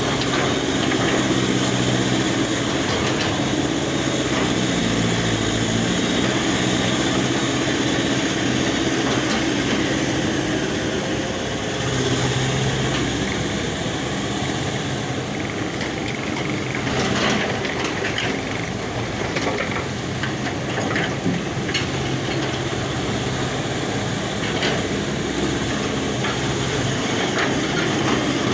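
Excavator's diesel engine running steadily, with scattered sharp clanks and knocks about two thirds of the way through.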